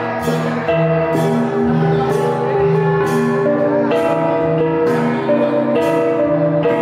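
Cồng chiêng ensemble of tuned gongs playing a repeating pattern: a regular beat of strikes, a little over one a second, each note ringing on over the others.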